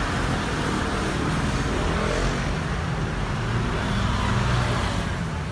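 Steady rumble of road traffic on a busy city street.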